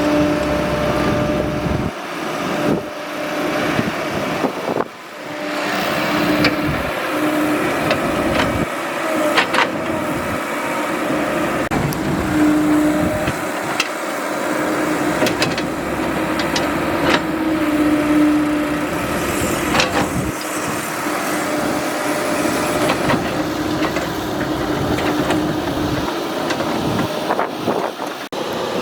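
Excavator working: its engine runs steadily, with a humming tone that comes and goes and several sharp clanks scattered through.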